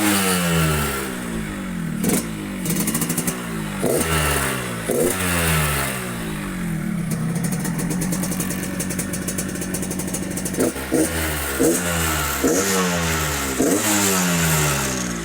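Yamaha RX-King 135's single-cylinder two-stroke engine through its stock exhaust, blipped repeatedly with the throttle. The revs jump and fall back toward idle each time, with a steadier stretch of running in the middle. The carburettor has just been set, and the exhaust note has a growl ("ngorok").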